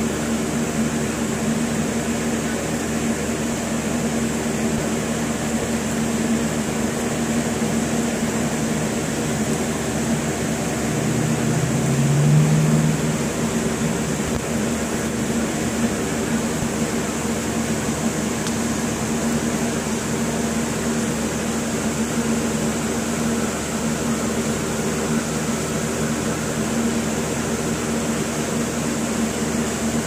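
Steady mechanical hum with a high hiss, as from a fan or air-conditioning unit running. A louder low drone swells for about two seconds, about eleven seconds in.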